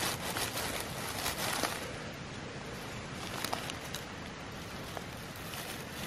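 Dry leaf litter rustling and crackling as fingers handle a cep mushroom growing on the woodland floor, the crackles mostly in the first two seconds, over a steady background hiss.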